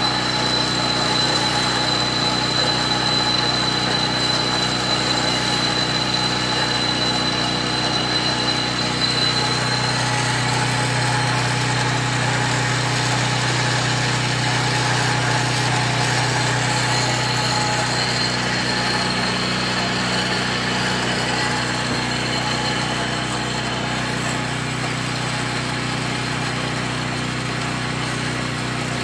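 Kalamazoo 8C horizontal metal-cutting band saw running steadily, its blade sawing through 1/4 inch wall steel square tubing. A steady motor hum, with a thin high whine that fades after about ten seconds. The saw is cutting well.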